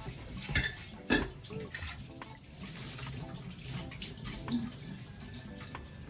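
Running water with a few clinks and knocks, like dishes or utensils being handled at a tap.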